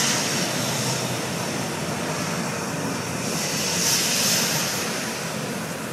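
Steady rushing noise of a steam train running, with a high steam hiss that swells near the start and again about four seconds in.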